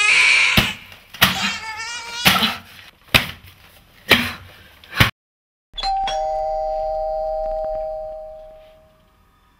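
A woman screaming, a high wavering cry, while landing about six heavy blows in quick succession. After a short silence, a two-tone ding-dong doorbell rings once and fades over about three seconds.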